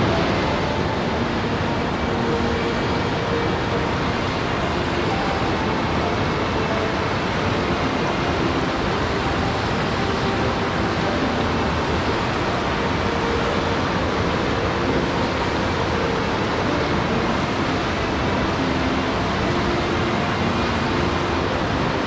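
Steady rush of water, an even noise that cuts in suddenly and holds level throughout, with a few faint held tones beneath it.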